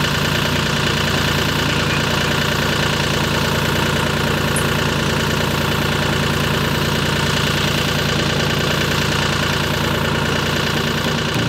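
The diesel engine of a ride-on vibratory plow runs steadily at a constant speed while it pulls PVC irrigation pipe and control wire underground.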